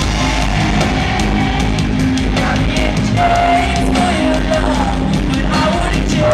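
Live pop-rock band playing with a woman singing lead: electric guitar and drums under her held, sliding sung notes, with regular drum and cymbal hits.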